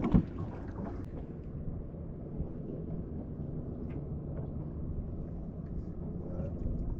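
Small fishing boat's motor running low and steady with a faint hum, under wind rumble on the microphone. A single knock sounds just after the start.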